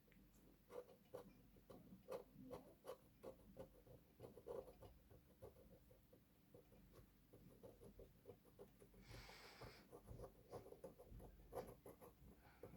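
Faint scratching of a blade scraping the green solder mask off a circuit board's copper pads, in many short strokes, with one longer hiss about nine seconds in.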